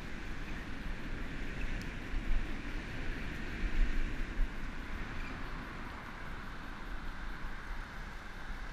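Wind buffeting the microphone with a steady low rumble, and bicycle tyres rolling with a hiss on a wet asphalt path, during a ride.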